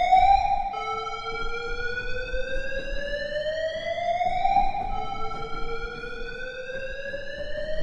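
Warning siren alarm: a single wailing tone that climbs slowly in pitch for about four seconds, drops back, and starts climbing again. The drops come about a second in and about five seconds in.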